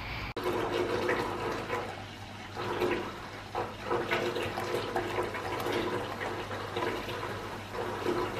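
Bath tap running, filling the bath with a steady stream of water.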